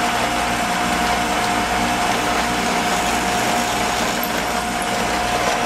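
ShopSmith multipurpose tool running in drill-press mode, its motor giving a steady whine while a 13/64-inch bit drills a through hole in a wooden board.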